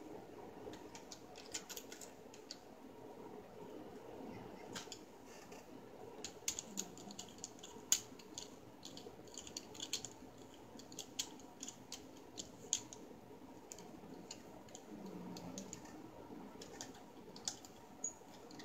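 Irregular light clicks and taps of plastic parts being handled and fitted together while a ring light and tripod stand are put together. The sharpest click comes about eight seconds in.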